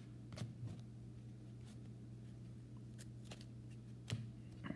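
Trading cards being handled and flipped through by hand: a few short, faint card slides and clicks scattered over a steady low hum.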